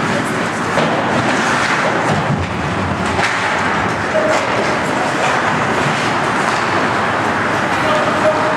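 Ice hockey in play: a steady wash of skates scraping and carving on the ice, with occasional sharp clacks of sticks and puck.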